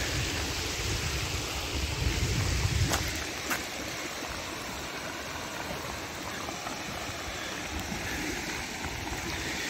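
Muddy flash-flood water rushing along a desert wash in a steady hiss, with wind buffeting the microphone for the first three seconds or so.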